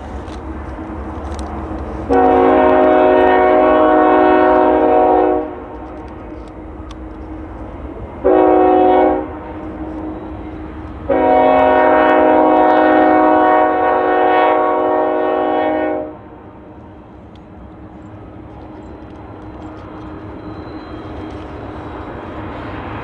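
Diesel freight locomotive's air horn sounding a long blast, a short blast and a long blast over the low rumble of the locomotive's engines. The pattern follows another long blast just before and matches the long-long-short-long grade-crossing signal.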